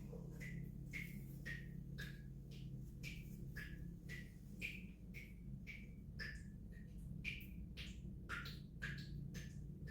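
Water dripping steadily, about two drops a second, each a short plink whose pitch shifts from drop to drop.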